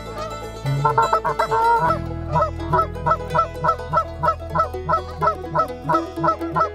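Geese honking: a cluster of overlapping honks about a second in, then a steady run of about three honks a second.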